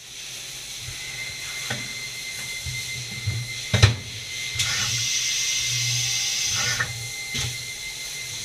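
Fadal VMC4020FX CNC vertical mill running under power: a steady high whine over hiss and a low hum, with a few sharp clicks or knocks, the loudest about four seconds in. The hiss grows louder for about two seconds in the middle, then drops back.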